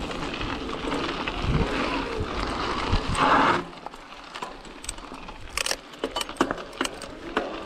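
Mountain e-bike clattering over a rough trail: chain and frame parts rattle in quick, irregular clicks over a steady rush of riding noise. The rush swells briefly about three seconds in, then drops away, leaving mostly the rattling.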